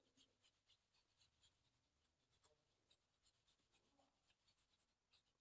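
Near silence, with a scatter of faint, brief scratches of an ink brush stroking on paper.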